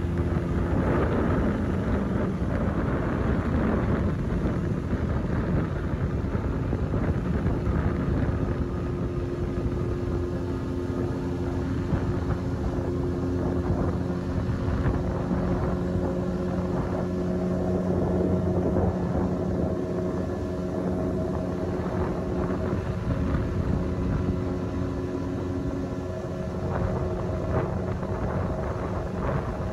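Boat engine running steadily as the boat travels along the river, its pitch holding level.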